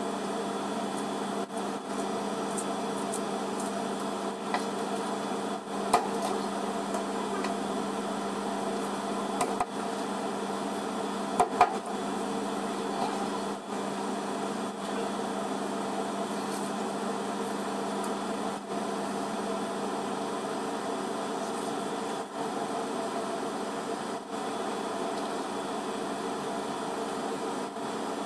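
A steady mechanical hum, with a knife cutting through fish and knocking a few times on the cutting board; the sharpest knocks are a single one and, a few seconds later, a quick pair.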